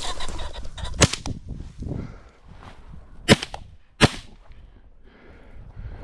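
Three shots from a CZ 12-gauge shotgun fired at a flushing pheasant. One comes about a second in, then two louder ones about three-quarters of a second apart.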